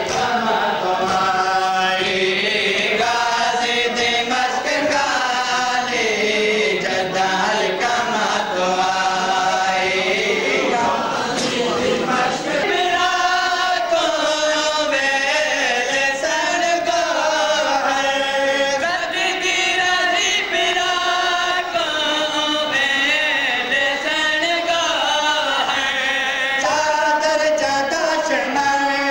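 Men's voices chanting a Punjabi noha, a Shia Muharram lament, together in long sung lines.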